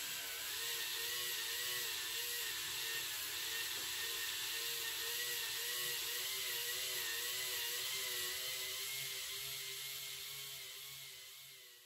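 K'nex motor and gearing running steadily, driving a ball-carrying car around a ring lift built from rollercoaster track, with a whine that wavers up and down in pitch about twice a second over a mechanical whir. The sound fades out near the end.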